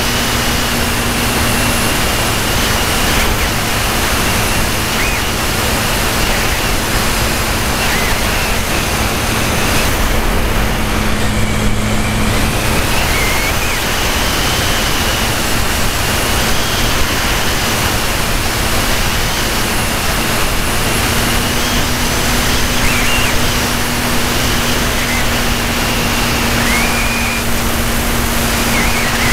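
Radio-control model airplane in flight, heard from a camera riding on it: a steady rush of wind over the microphone with the hum of the motor and propeller running underneath at a near-constant pitch.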